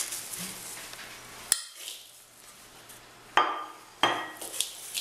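Crumbled biscuit pieces crunching and rustling as hands scoop them out of a glass bowl into a plastic bowl. There is a sharp knock about a second and a half in, and two louder rushes of crumbs near the end.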